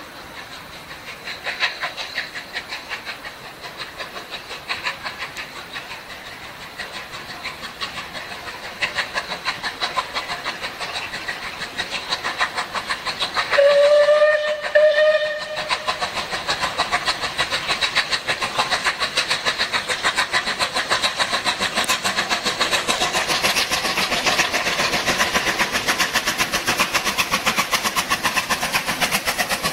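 Steam locomotive 34046 Braunton, a rebuilt Bulleid West Country class three-cylinder pacific, approaching and passing with a quick, even exhaust beat that grows steadily louder as it nears. About halfway through it gives two blasts on its whistle.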